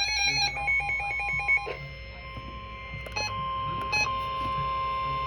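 NOAA Weather Radio emergency alert signal: rapidly alternating warbling data tones, then about two seconds in a steady 1050 Hz attention tone that signals an alert is about to be read. Two brief clicks break in near the middle.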